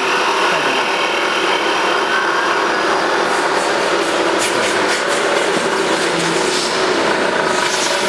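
Mini wood lathe running steadily while its cutter scrapes a spinning wooden blank into a bead, a rasping wood-cutting sound over the machine's hum. The scraping grows more uneven about three seconds in.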